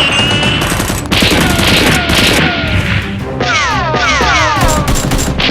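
Action soundtrack music mixed with dense rapid gunfire and impact sound effects. About midway, several falling whistling tones sweep down over the shots.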